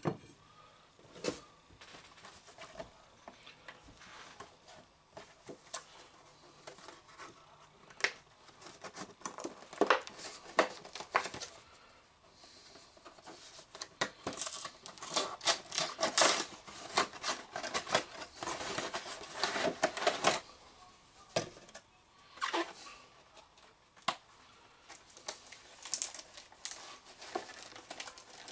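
Food packaging being handled: a box and a plastic bag rustling and crinkling, with scattered light clicks and taps. It is sparse at first and busiest about halfway through, with another bout near the end.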